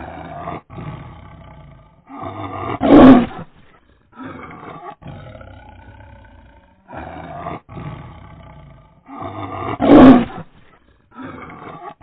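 Tiger roaring: a run of shorter, softer roars, broken by two much louder full roars about seven seconds apart, each swelling and then cutting off sharply.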